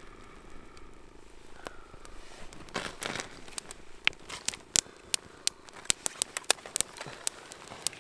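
Wood campfire crackling, with sharp pops coming thick and fast in the second half as the freshly stoked fire catches. A brief rustling noise about three seconds in.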